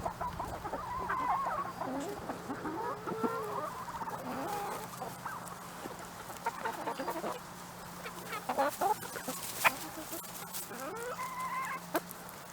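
A flock of backyard chickens clucking with short, scattered calls as they feed on a treat of egg cake and eggshells.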